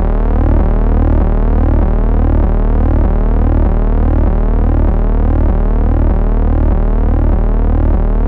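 Loud, steady electronic drone: a low hum under stacked tones, with a pattern of rising pitch sweeps that repeats about twice a second.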